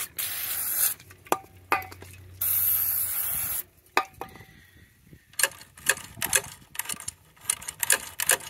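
Aerosol can of brake cleaner spraying in two bursts of about a second each onto a record-changer mechanism to flush out old grease. Sharp metallic clicks follow, and about halfway through a quick, irregular run of light metallic clicking and rattling as the parts are handled.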